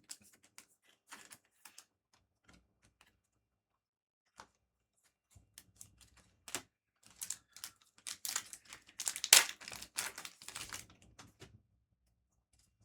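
Trading cards and a booster pack handled by hand: scattered light clicks and card snaps, then a denser run of crisp rustling and crinkling from about seven to eleven seconds in.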